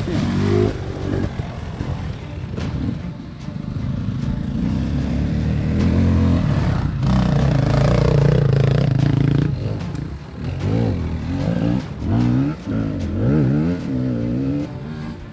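Enduro dirt bike engine revving. It holds a loud steady pull in the middle, then surges and drops again and again near the end as the throttle is blipped, with some clatter.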